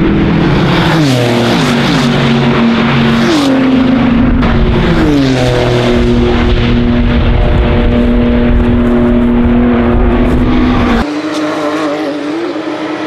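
Race car engine, the SCG 003C's Honda twin-turbo 3.5-litre V6, dropping revs in several steps through downshifts, then revving up and holding a steady high note. It cuts off abruptly about eleven seconds in, leaving a quieter engine sound.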